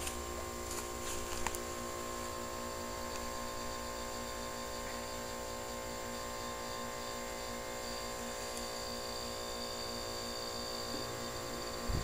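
The outdoor condensing unit of a 2003 American Standard Allegiance 12 central air conditioner running with a steady electrical hum, with a light click about a second and a half in. Its condenser fan keeps cycling off and on, which the owner puts down to a low ambient kit.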